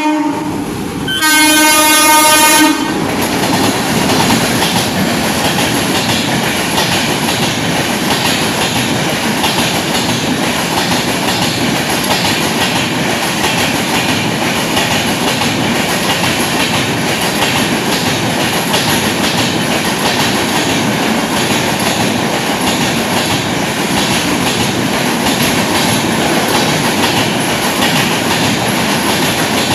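Sealdah–New Delhi Rajdhani Express passing through a station at speed. The locomotive's horn blows in a loud blast from about one to three seconds in, then the coaches rush past with a steady rolling rattle and the clickety-clack of wheels over rail joints.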